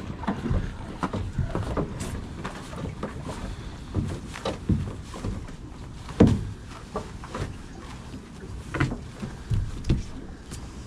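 Scattered knocks and thumps against a metal boat's hull and gunwale as crab-pot rope is hauled in by hand, the loudest about six seconds in, over a low steady rumble.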